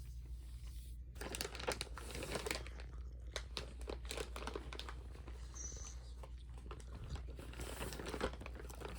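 Crinkling and rustling, as of plastic or paper being handled, starting about a second in and continuing in irregular bursts over a steady low hum.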